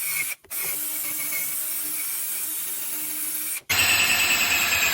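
Black & Decker drill spinning a wire brush against steel: a steady harsh scratching that cuts out briefly twice, the second time coming back louder with a high whine.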